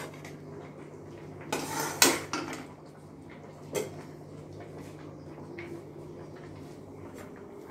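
Metal utensil clinking and scraping against an emptied metal kadai. There are a few sharp clinks, the loudest about two seconds in and another near four seconds, over a low steady hum.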